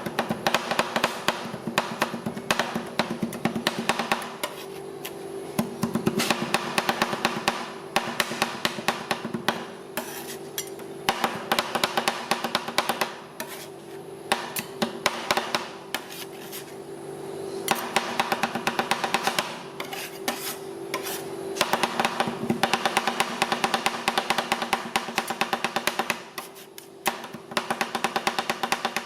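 Metal spatulas chopping and scraping rapidly on a rolled-ice-cream cold plate, a fast clatter of clicks in runs of several seconds broken by short pauses, over a steady hum.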